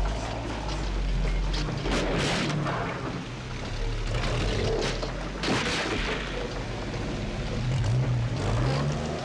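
A heavy GMC M211 army cargo truck's engine labouring at low revs under a steady rush of heavy rain and storm noise, with two louder surges of rushing noise about two and five and a half seconds in. The engine note rises and wavers near the end.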